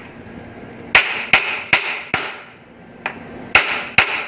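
Hammer blows on the metal around an office chair's gas lift cylinder at the seat mechanism, knocking the cylinder loose for removal. Four sharp metallic strikes in quick succession, a pause, then three more near the end, each ringing briefly.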